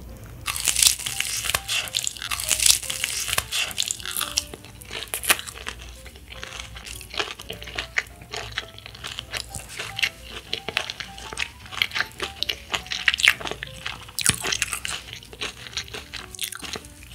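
Crunching of a crispy fried chicken wing's coating being bitten and chewed, close up. The crackly crunches are densest in the first few seconds after the bite, then keep coming in smaller runs as the chewing goes on.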